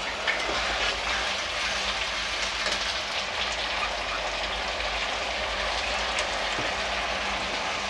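Onions and a freshly added masala paste sizzling steadily in hot mustard oil in a kadhai, with small spatters and a metal spatula stirring through them.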